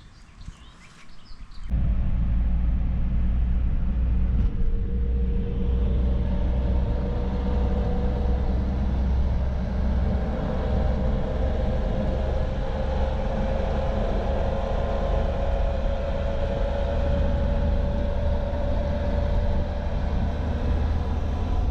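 Car on the move: a steady low engine and road rumble that starts suddenly about two seconds in, with an engine tone slowly rising in pitch.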